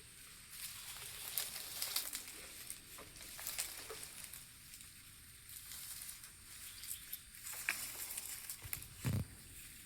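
Faint crackling and rustling of leaves being handled, with scattered light taps and one soft thump about nine seconds in.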